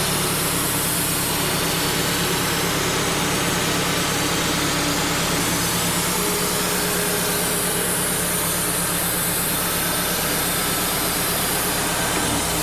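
Wood-Mizer LT35 HD portable band sawmill running steadily under load, its band blade cutting through a knotty pin oak log.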